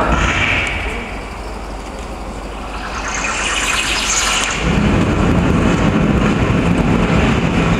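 Light-show soundtrack over loudspeakers: a rising whoosh between about two and a half and four and a half seconds in, then a dense, low rumbling from about five seconds in.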